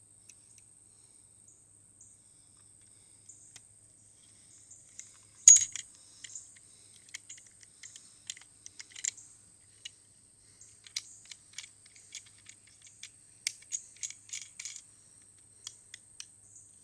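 Plastic clicks and rattles from a Hasbro Darth Revan toy lightsaber being handled as its blade is fitted and it is tried without lighting: one sharp click about five seconds in, then a run of small irregular clicks. A faint steady high whine runs underneath.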